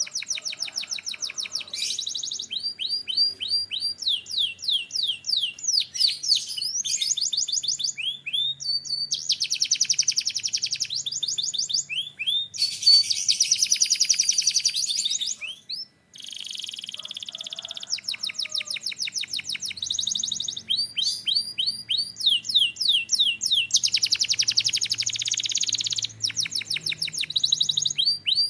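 A male canary singing continuously: phrases of rapidly repeated falling whistled notes alternate with fast, buzzing trills, and the song stops briefly about halfway through before starting again.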